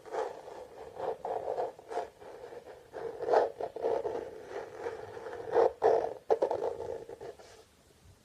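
Plastic Tupperware containers scratched and rubbed, a continuous scraping with a few sharper taps, stopping shortly before the end.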